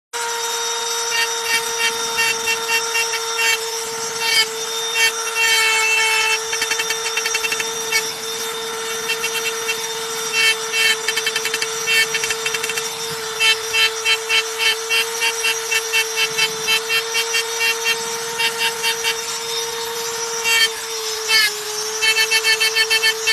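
Small handheld electric rotary tool running with a steady high whine, its spinning bit scratching into a board surface in quick runs of short strokes as it engraves lines and dots.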